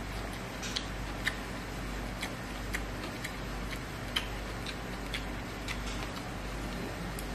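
Close-up chewing of rice and rendang with the mouth full: small wet mouth clicks and smacks at an uneven pace, about one or two a second, over a faint steady low hum.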